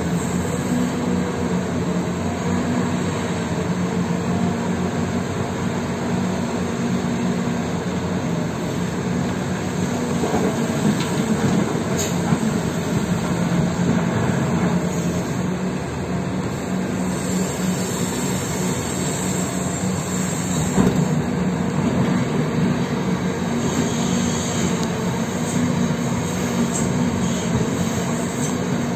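Heavy diesel engines of a Cat 6030 hydraulic mining shovel and a haul truck running steadily under load as the shovel loads rock, a deep continuous drone with a couple of short knocks.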